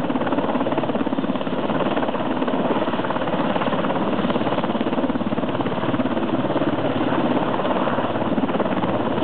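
Rescue helicopter running steadily, its rotor blades giving a fast, even chop.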